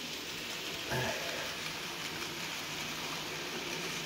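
N gauge model goods train of coal wagons running along the layout's track: a steady hissing running noise, with one brief, slightly louder sound about a second in.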